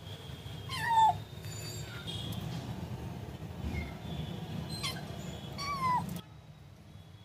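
Kitten meowing, two short meows that fall in pitch, about a second in and about six seconds in, over a low steady rumble.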